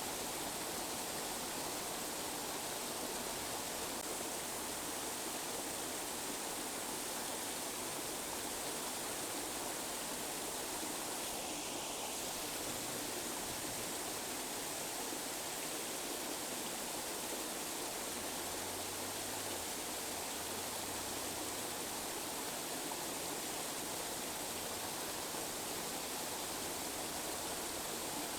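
Tinnitus-masking noise: a steady, unbroken hiss like rushing water, even in level throughout.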